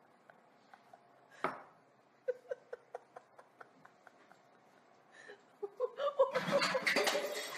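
Someone laughing under their breath in short snickers, then breaking into louder laughter near the end.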